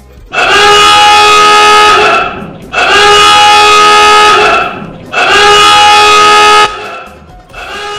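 A horn blaring in three long steady blasts of about two seconds each with short gaps between, followed near the end by a quieter fourth blast.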